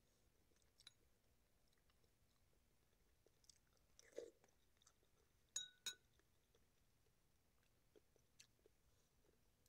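Faint close-up eating sounds: soft chewing, and a metal spoon clinking twice in quick succession against a ceramic soup bowl a little past halfway, each clink with a short ring.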